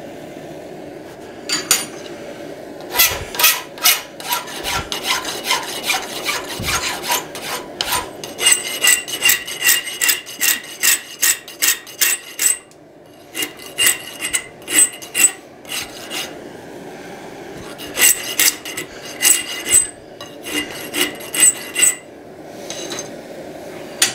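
Half-round hand file rasping in quick back-and-forth strokes across the edge of a thin forged steel hinge strap, about two strokes a second in runs broken by short pauses. The strokes carry a faint high ring from the steel.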